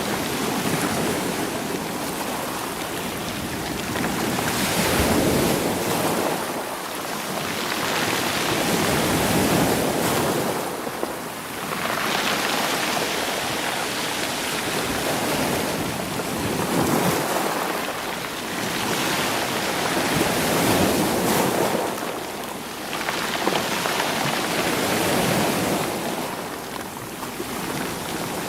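Ocean waves washing against rocks and rolling stones, surging and ebbing about every four seconds.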